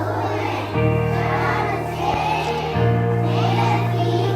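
A song with a group of children's voices singing over backing music, whose bass chord changes about every two seconds.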